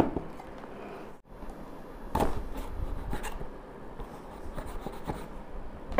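Knife blade scraping and cutting into a cardboard box, a run of scratchy strokes with a louder scrape about two seconds in.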